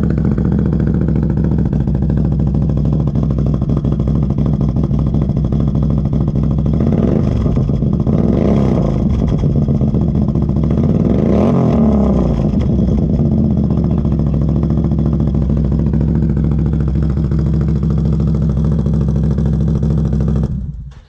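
Off-road vehicle engine fitted with an aftermarket exhaust pipe, running loudly and steadily after starting, revved up twice in the middle, then shut off abruptly near the end.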